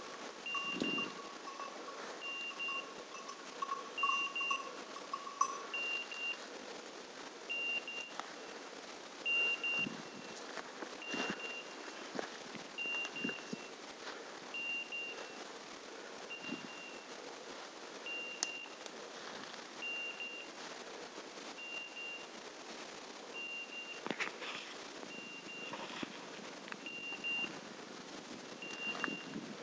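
A hunting dog's beeper collar on an English setter, sending a short high beep at an even pace of about one every second and a half; a lower steady tone sounds with it for the first five seconds or so. Scattered crackles of steps through dry leaf litter sound in between.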